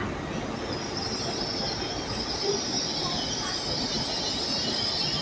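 GWR Class 802 bi-mode train moving along the platform, its wheels squealing high and steady over the rumble of the running gear.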